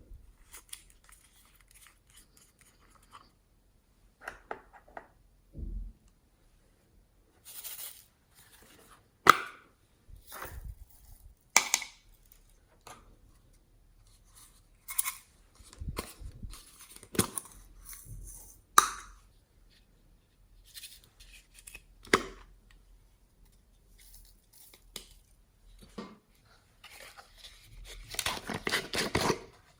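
Hands working slime and its add-ins, making scattered sharp crackles, snaps and tearing sounds. The crackling grows denser near the end.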